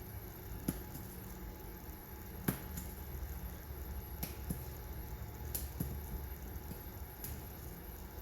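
Scattered short, sharp clicks and taps of laser-cut balsa pieces being cut free of the tabs holding them in the sheet, the loudest about two and a half seconds in, over a steady low hum.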